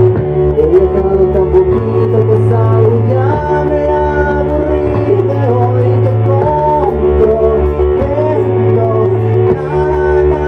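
Live rock band playing loud: electric bass holding deep notes that change every second or two, a Stratocaster-style electric guitar and drums, with a man singing over them.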